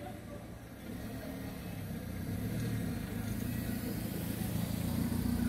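Low rumble growing steadily louder as vehicles approach the closed level crossing: an ICM intercity train drawing near and a car coming up the road.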